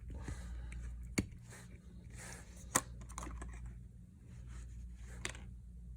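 Light clicks and taps of small objects being handled on a workbench, with three sharper clicks spread through, over a steady low electrical hum.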